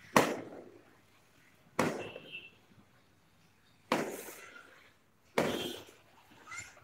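Firecrackers going off: four sharp bangs at uneven gaps of about one and a half to two seconds, each trailing off quickly.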